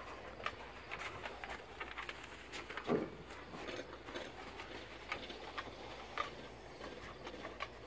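Light, irregular clicks and taps as a Bernese mountain dog walks about on wooden deck boards, with one brief low sound about three seconds in.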